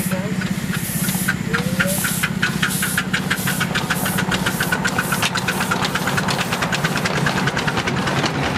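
Miniature steam locomotive pulling away with a passenger train, its exhaust chuffs quickening from about two a second to several a second as it gathers speed, with steam hissing. A steady low hum runs beneath.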